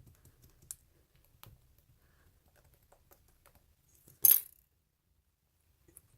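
Light clicks and taps of small objects being handled while making slime, with one loud, short clatter a little after four seconds in.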